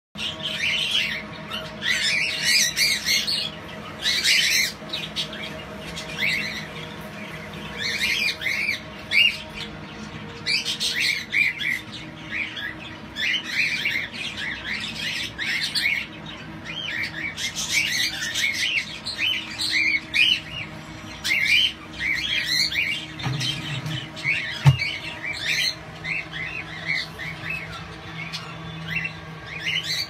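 Cockatiels chirping and calling in repeated short bursts of high chirps, with a single sharp knock late on.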